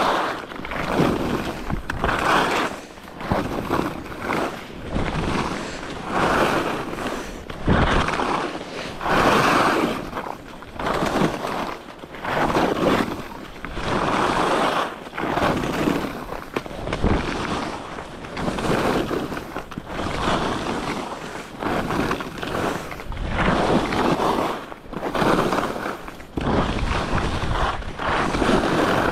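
Head alpine skis carving turns on a packed, groomed snow piste: a scraping hiss from the edges that swells and fades with each turn, about one turn every second or so, with wind buffeting the microphone.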